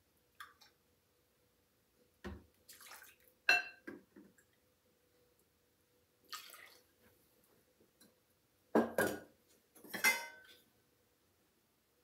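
Whole milk poured from a plastic gallon jug into measuring cups and tipped into a glass mixing bowl: short pours and splashes, and a clink with a brief ring from a metal measuring cup about a third of the way in. The loudest moment is a cluster of knocks and clatter of the cups and jug against the bowl about three quarters of the way in.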